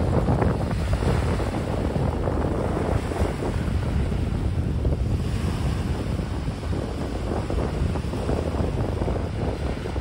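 Small waves breaking and washing over a pebble-and-cobble shore, with wind buffeting the microphone.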